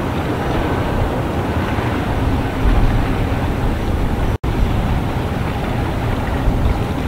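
Wind buffeting the microphone: a steady, gusty low rumble under a wash of outdoor noise. It cuts out for an instant a little over four seconds in.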